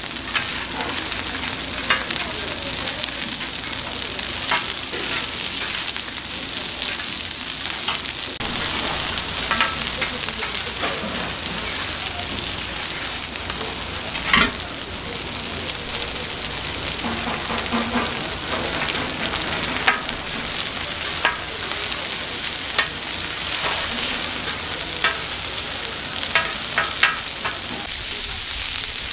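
Donggeurangttaeng (small Korean meat patties) sizzling in oil on a flat griddle: a steady high hiss with scattered clicks and pops, the loudest knock about halfway through.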